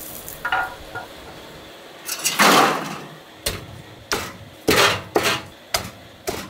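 Meat cleaver chopping roasted chicken on a wooden chopping block: a run of six or seven sharp knocks, about one every half second, in the second half. A louder noisy burst of about half a second comes just before the chopping starts.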